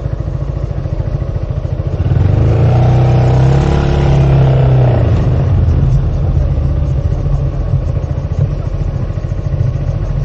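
A motor vehicle engine running steadily, with a louder engine sound swelling about two seconds in and fading by about six seconds in, as of a vehicle passing close by.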